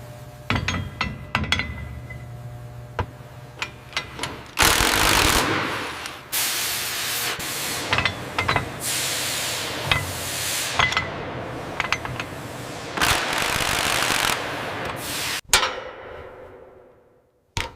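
Heavy metalworking factory sounds: a run of sharp metal knocks over a low hum, then several long, loud bursts of hissing noise with more knocks among them, fading out near the end.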